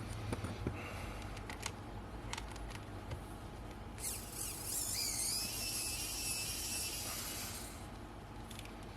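Small Phillips screwdriver working tiny screws in a camera lens: a few light metal clicks, then a high, wavering squeal lasting about four seconds, starting about four seconds in.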